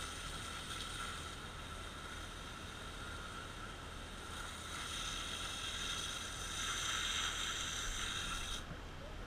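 Fire engine running at the pump, with the steady hiss of water spraying from a hose line's nozzle. The hiss grows stronger about five seconds in, then cuts off suddenly near the end as the nozzle is shut down.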